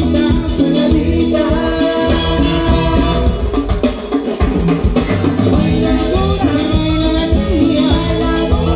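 Live Latin tropical band playing: trumpets, electric guitars, congas and drum kit keep a steady dance beat, with a singer over the band.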